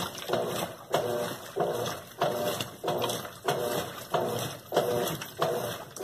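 Colormaq LCA11 top-loading washing machine agitating a load in water. The agitator reverses about every two-thirds of a second, and each stroke starts with a click and runs into a short motor-and-gear hum with sloshing water. The machine has a transmission (câmbio) fault that the technician says makes it noisy.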